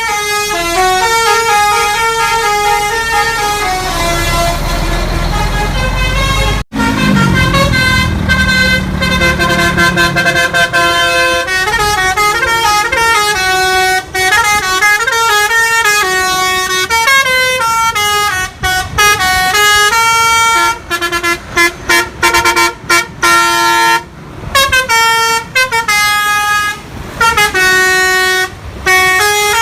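Multi-tone 'basuri' musical bus horn playing a melody of stepped notes. A low rumble sits under it in the first third, and the notes become choppier, with short gaps between them, in the last third.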